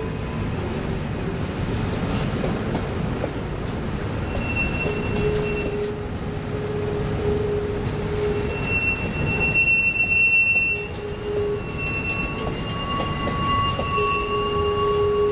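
Freight train of boxcars rolling past, steel wheels rumbling on the rails with high-pitched wheel squeal that comes and goes in drawn-out whines.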